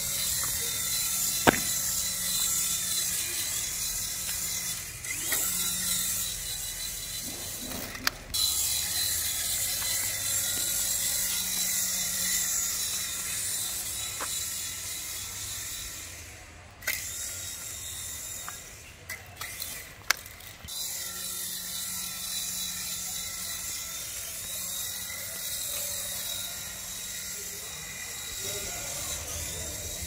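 Small electric motor and rotor blades of an HX708 toy RC helicopter, making a steady high whir. The whir drops for a few seconds just past the middle, and a few sharp clicks sound over it.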